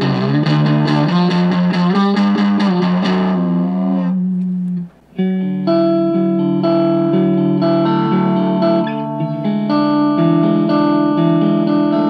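Electric guitar played through a Stewmac Sun Fuzz kit pedal, a Fuzz Face-style silicon transistor fuzz with the fuzz set at 2 o'clock. Fast strummed chords ending on a held chord come first, with BC238 transistors fitted. After a brief break about five seconds in, a new run of ringing chords follows with BC549B transistors.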